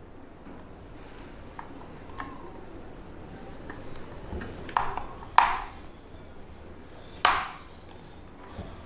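Handling noise from a hard-shelled full-face motorcycle helmet being worked out of its cardboard box. Three sharp knocks ring briefly, two close together a little past the middle and one louder near the end.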